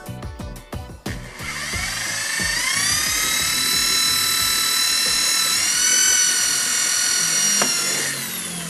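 Corded electric drill spinning up with a rising whine about a second in, then running steadily for about five seconds, its pitch stepping up a little midway, before stopping near the end.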